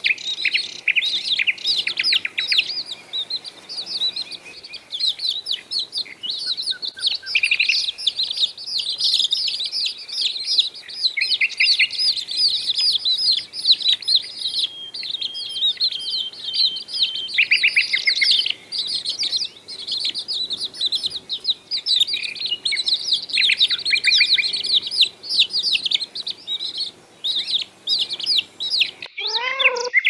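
A brood of young chicks peeping continuously, many short, high, downward-sliding peeps overlapping in a dense chorus.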